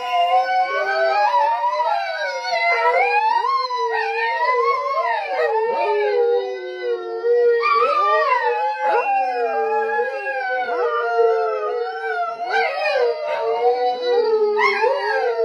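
Several dogs howling together: long, overlapping howls at different pitches that waver and slide up and down.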